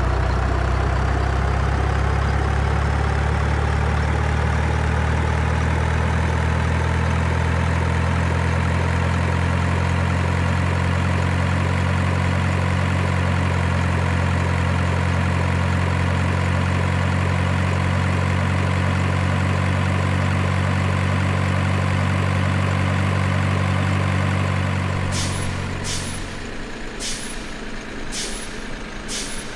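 Heavy diesel truck engine running steadily. Near the end it dies away, and a string of short, sharp air-brake hisses follows.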